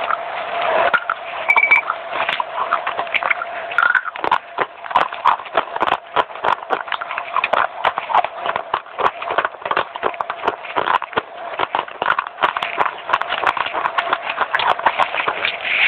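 Fast crunching of crisp baked clay bars being chewed, a dense run of sharp crackles.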